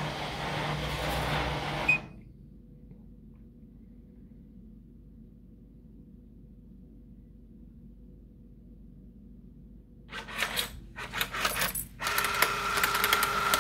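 A vending machine's spiral vend motor runs for about two seconds, with a short beep as it stops, then the machine hums faintly. About ten seconds in, the Coinco coin mechanism pays out change: a run of clicks, then coins rattling and ringing as they drop into the return cup.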